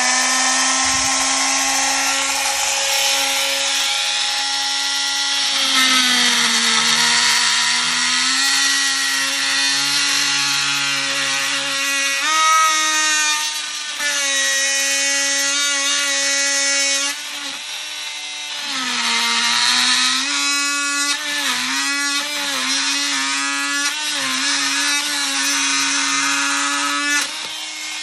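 Original Milwaukee M12 oscillating multi-tool running at its top speed setting of 12 and plunge-cutting into a wooden plank: a steady high buzz that sags in pitch each time the blade bites under load and then recovers.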